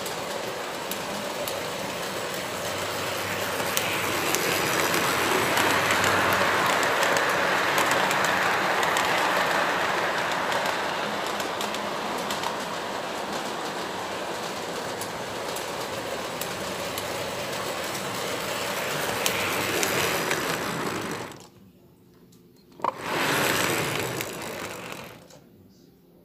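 Lionel Santa Fe model freight train running on its track loop: a steady rolling clatter and motor hum that swells louder midway and cuts off about 21 seconds in, followed by a short burst of the same noise a second later.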